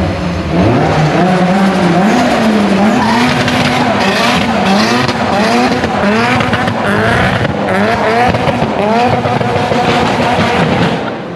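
Nissan Silvia S15's forged SR20 four-cylinder engine revving hard while drifting, its revs rising and falling over and over, with the tyres squealing as the car slides sideways.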